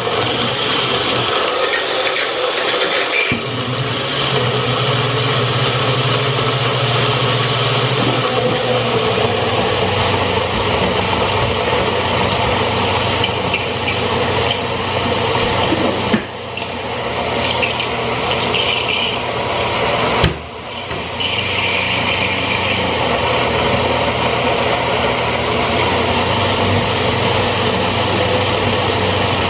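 Personal blender motor running continuously, blending a kale and frozen-fruit smoothie. Its steady hum changes tone about three seconds in, and the level dips briefly twice around the middle.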